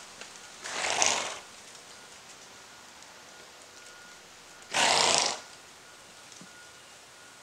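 A mustang horse blowing out hard through its nostrils twice, about four seconds apart, each a short, noisy breath.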